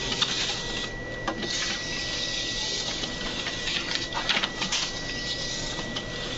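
Kodak sheet-fed document scanner pulling a stack of pages through one after another: a steady mechanical whir of the feed rollers with a thin high tone, and sharp clicks as sheets are taken in.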